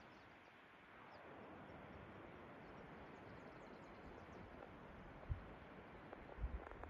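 Faint, steady outdoor ambience of open mountain country: a soft even hiss, with a couple of faint high chirps in the first second and a low bump about five seconds in.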